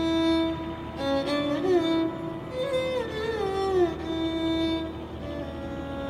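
Background music: a slow melody with notes that slide from pitch to pitch over a held lower note.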